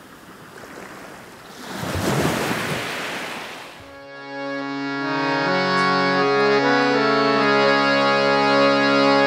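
A swelling whoosh of noise rises and fades over the first four seconds. Then a harmonium comes in, playing sustained chords with notes that step slowly between pitches, as the opening of a devotional bhajan.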